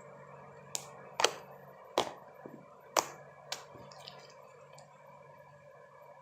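A series of about five sharp clicks or taps spread over roughly three seconds, irregularly spaced, over a low steady background hum.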